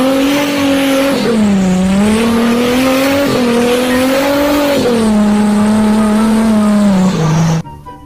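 Off-road SUV engine revving hard under load as it drives through deep mud, its pitch falling and rising several times, with a hiss of spinning tyres and spraying mud; it cuts off sharply near the end.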